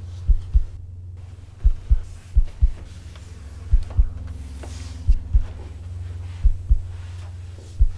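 Heartbeat sound effect: paired low thumps (lub-dub) repeating slowly, about every second and a half, over a steady low droning hum.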